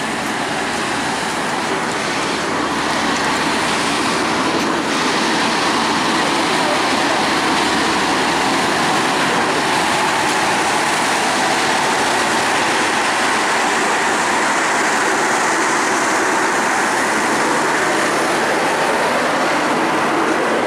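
Steady running noise of a standing diesel passenger train at the platform, with a faint low hum, getting a little louder about five seconds in.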